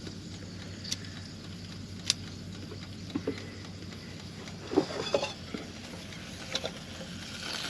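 A low, steady electrical hum with a few sharp light clicks and small knocks of handling, the loudest cluster about five seconds in.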